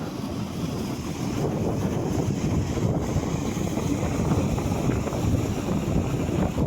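Strong wind buffeting the microphone, a steady low rumble, with surf in the background.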